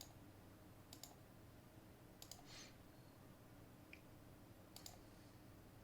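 Near silence broken by a few faint, sharp computer mouse clicks, several of them in quick pairs.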